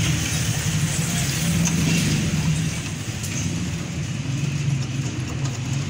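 A steady low mechanical hum, with a few faint light clicks from a screw and metal parts being handled as a gas-stove burner is fitted back in place.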